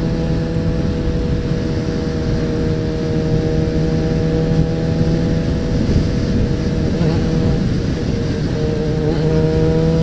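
Suzuki Bandit 650N's inline-four engine running at a steady cruising speed, heard from the bike with wind and road rumble, with brief shifts in engine pitch about seven and nine seconds in.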